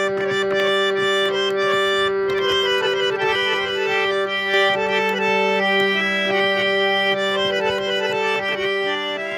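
Instrumental background music: a held melody over a steady low drone.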